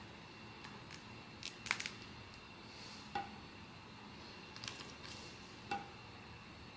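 Small ABS/PVC vinyl figurine being handled and set down on a marble tabletop: a few light plastic clicks and taps, two of them hard taps with a short ring.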